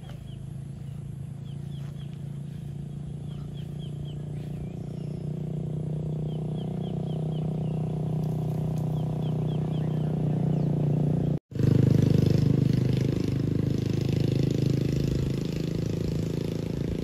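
A motorcycle engine running, growing steadily louder over about ten seconds; it breaks off for an instant about two-thirds through, then carries on louder. Short bird chirps come in quick runs of three or four during the first part.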